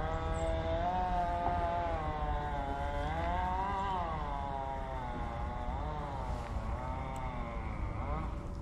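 A motor engine droning, its pitch slowly rising and falling and climbing briefly about halfway through, over a steady low rumble.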